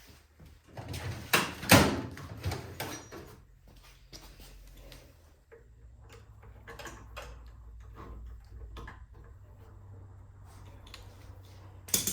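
Hand work on a snowblower's small engine as a new carburetor and its fuel line are fitted: a cluster of sharp clicks and knocks of metal parts and tools about a second or two in, then scattered light ticks, and a sharp clack near the end, over a steady low hum.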